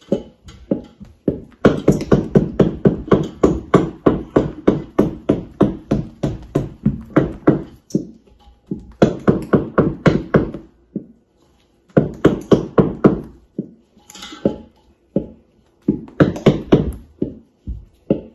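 Wooden spoon beating thick cake batter in a large stainless steel bowl, knocking against the metal about three or four times a second in runs broken by short pauses.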